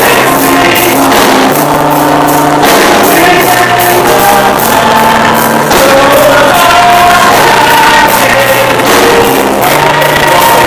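Loud live praise music with singing voices over a bass line that changes notes every second or so and a steady drum beat.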